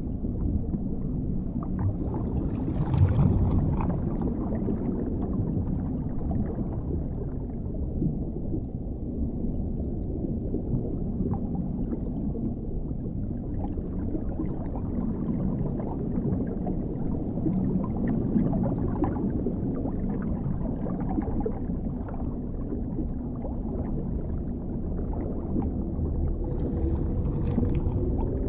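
Dark underwater ambience: a steady deep, muffled rumble of water with gurgling, swelling louder for a moment about three seconds in and again near the end.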